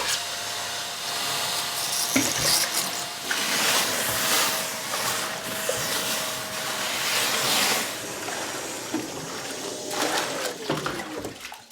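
Kärcher WD wet-and-dry vacuum sucking water out of a full sink: water rushing up the hose over the steady whine of the motor. Near the end the whine drops in pitch as the motor winds down.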